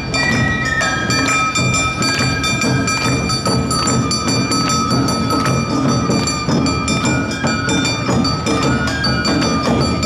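Awa odori festival band playing: rapid strokes of drums and bright metal gongs (kane) ringing over the beat, with a flute line.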